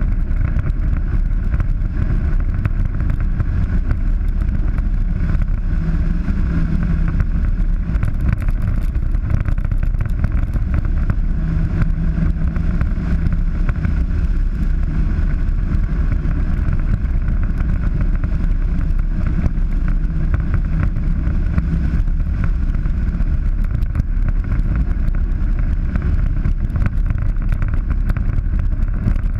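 Polaris 900 side-by-side running steadily while driving along a dirt track, a continuous low drone of engine and road noise with no sharp events.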